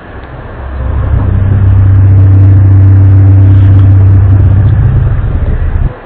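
Loud, low droning hum with a deep steady tone and fainter overtones, swelling up over the first second and dipping abruptly near the end before coming back. It is one of the unexplained 'strange sounds' of 2012, of unknown source.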